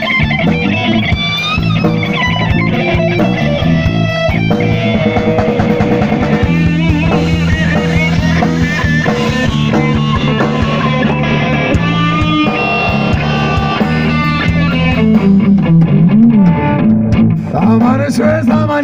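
Blues band playing live, led by an electric guitar solo with bending, wavering lead notes over bass and drums.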